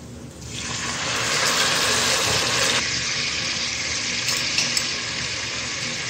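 Water poured into a pot of hot desi ghee and golden-fried onions, hitting the fat with a sudden loud hiss and sizzle about half a second in. The hiss eases a little about three seconds in and goes on as a steady sizzle.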